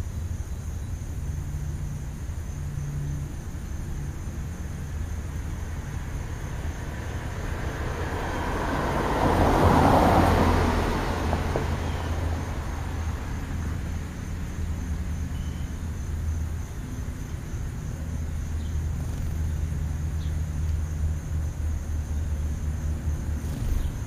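A car passing along the road, its noise swelling to a peak about ten seconds in and then fading away, over a steady low rumble.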